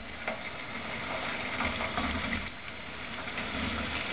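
Okra deep-frying in hot oil in a kadai: a steady sizzling and bubbling with small crackles.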